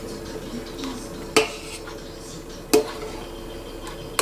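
Metal spoon stirring salt into soup in a stainless steel pot, knocking sharply against the side of the pot three times, about a second and a half apart.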